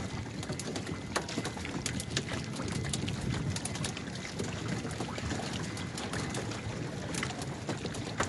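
Water sloshing and splashing around a crowd of outrigger fishing canoes, with many small knocks and clicks from the boats and gear.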